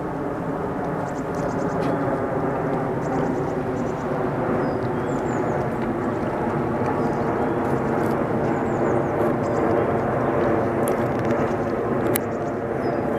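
Boeing 787-9 Dreamliner passing low overhead on approach with its landing gear down. Its twin turbofan engines make a steady jet rumble with a dense hum of tones that grows slightly louder.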